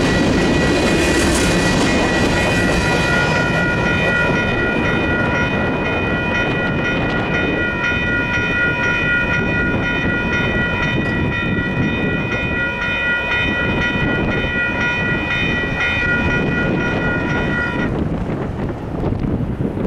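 Railroad grade-crossing warning bells ringing steadily while the last covered hopper cars of a freight train roll through the crossing with wheel and rail noise. The train noise fades after the first few seconds, and the bells keep ringing until they cut off near the end.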